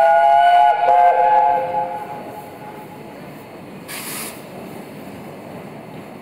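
Whistle of the LNER Peppercorn A1 steam locomotive 60163 Tornado, two loud blasts of several notes sounding together, the second tailing off. A short hiss of steam about four seconds in.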